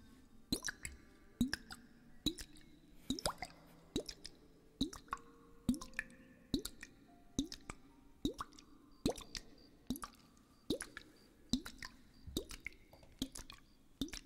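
Liquid plops from a storm glass (weather glass), one about every 0.85 seconds in an even rhythm. Each plop is a short click followed by a quick upward-bending blip, like a drop falling into water.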